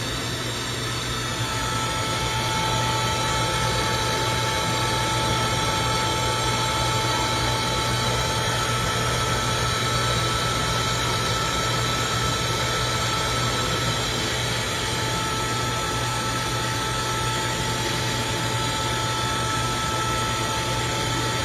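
Key-duplicating kiosk's cutting machine running steadily as it cuts a new key: a constant motor whine over a low hum, a little louder from about two seconds in.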